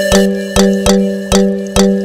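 Background music with a steady beat: short struck notes about two a second over a held low note.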